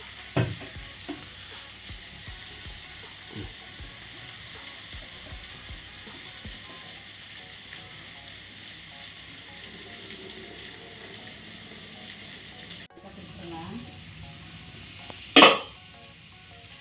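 Food frying and sizzling in a pan, with a few light knocks and one loud knock near the end.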